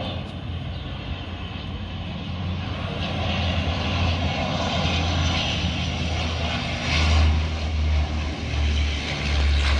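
Twin-engine turboprop airliner flying low overhead. Its steady propeller and engine drone grows louder through the pass, with a deep rumble strongest in the last few seconds.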